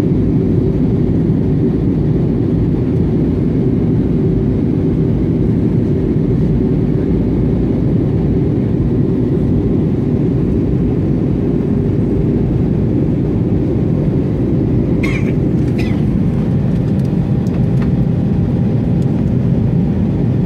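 Steady cabin roar of an Airbus A320 in flight, engine and airflow noise heard from a window seat, with a faint steady hum under it. Two short clicks about fifteen seconds in.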